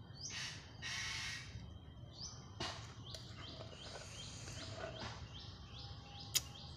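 A bird chirping over and over, a short falling call about three times a second, from about two seconds in. Two short hissing rushes of noise come in the first second and a half, and a single sharp click near the end is the loudest sound.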